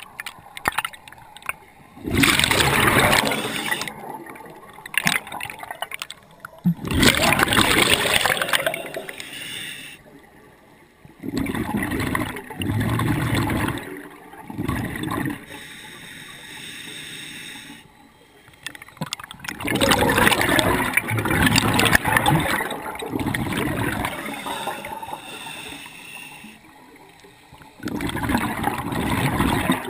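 Scuba diver breathing through a regulator underwater: a slow cycle of hissing inhales and loud rushes of exhaled bubbles, repeated several times.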